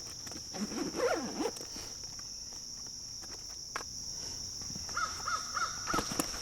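A bird calling four times in quick succession near the end, over a steady high-pitched insect drone.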